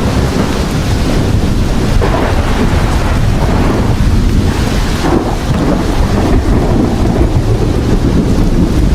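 Thunderstorm: steady heavy rain with a continuous low rumble of thunder rolling underneath.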